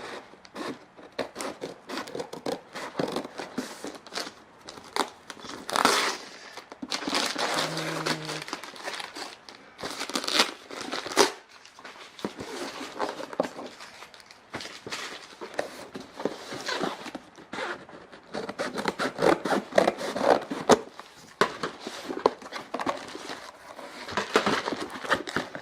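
Parcel packaging being unwrapped by hand: irregular crinkling and rustling of plastic and bubble wrap, with tearing and many short clicks throughout.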